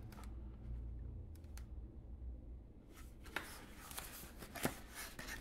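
Paper instruction manual being handled and shifted in the hands, with soft paper rustling and a few sharp paper flicks in the second half.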